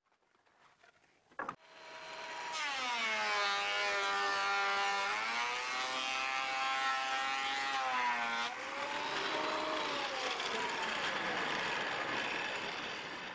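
Benchtop thickness planer starting up and planing a glued-up pallet-wood paddle blank. The motor's whine rises in level, then sags and shifts in pitch as the cutterhead bites into the board, over a steady hiss of cutting.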